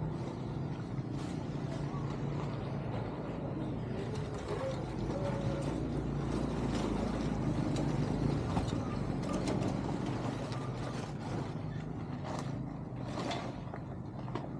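A steady low rumble, with scattered sharp knocks and scrapes from about nine seconds in as a long-handled hoe strikes and drags trash and branches in a clogged culvert.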